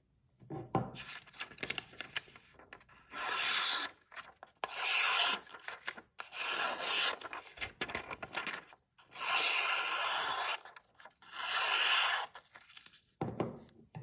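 Victorinox Evoke folding knife's clip-point blade slicing through a sheet of paper: about five long, hissing cutting strokes with paper rustling between them, then a short dull knock near the end.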